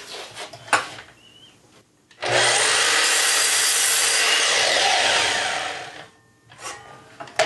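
Sliding compound miter saw cutting a thin wooden strip to length: the blade bites in suddenly, cuts steadily for about three seconds, then winds down. A few light clicks and knocks come before and after the cut.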